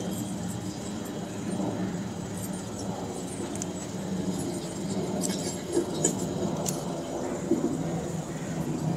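Ambience of a gathered outdoor crowd: a low murmur under a steady low hum, with scattered sharp clicks and clinks in the second half.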